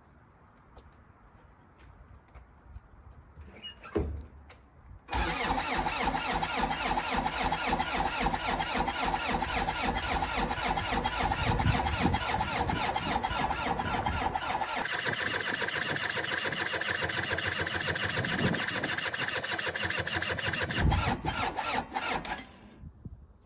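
A skid steer's 3.3 L Cummins four-cylinder diesel is started cold with no glow plugs, grid heater or block heater, on compression and fuel alone. A loud, fast-pulsing engine start begins about five seconds in. The sound changes about ten seconds later and cuts off some six seconds after that.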